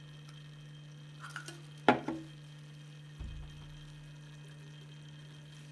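Dichloromethane being poured from a bottle into a small glass beaker and then into a round-bottom flask, with a sharp knock about two seconds in, over a steady low hum.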